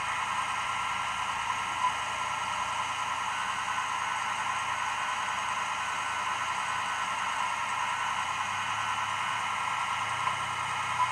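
A stopped car's engine idling steadily, heard from inside the cabin as an even hum, with a faint click about two seconds in.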